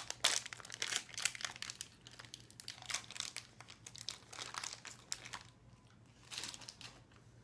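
Plastic sweet wrapper of a bag of Randoms crinkling in quick crackles as it is bitten and pulled at to tear it open. The crackling thins out after about five seconds, with one more short burst near the end.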